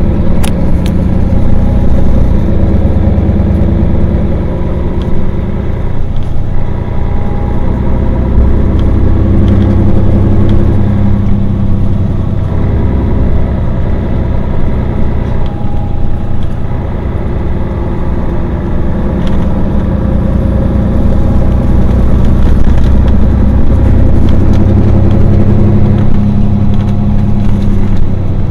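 Engine of a Mercedes-Benz Citaro Facelift city bus running steadily while the bus stands still, idling, with a deep rumble that swells slightly now and then.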